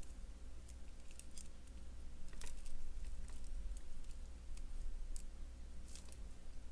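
Copper chain links and jewelry wire clicking lightly as they are handled and the wire is threaded through a link: a scattered handful of small ticks at irregular intervals, over a faint low hum.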